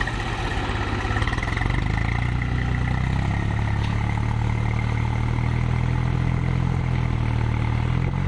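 Swaraj 735 FE tractor's diesel engine coming up on the throttle about a second and a half in and holding a steady, loud pull under load as it tows a second tractor stuck in sand by a chain.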